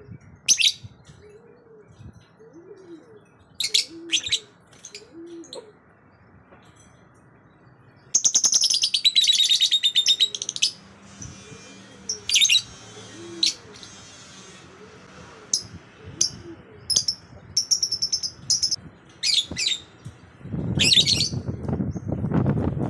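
Lovebirds chirping: short, shrill chirps in scattered bursts, with a loud, rapid buzzy chatter about eight seconds in. Near the end, a loud low rushing noise rises under the chirps.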